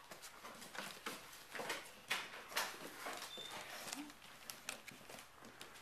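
Goldendoodle puppies moving and playing: scattered rustling, light taps and pattering with no steady sound underneath.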